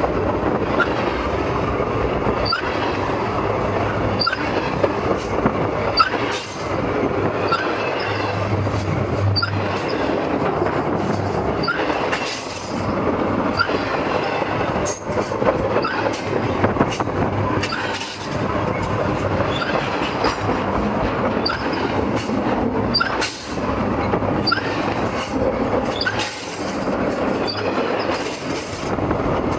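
Train cars rolling directly over the camera between the rails: a loud, steady rumble and rattle of steel wheels on the rails, with clicks and short high squeaks. The noise dips briefly every five or six seconds.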